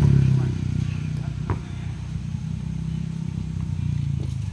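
A vehicle engine running steadily, loudest at the start, with one sharp knock about a second and a half in from the ball in play.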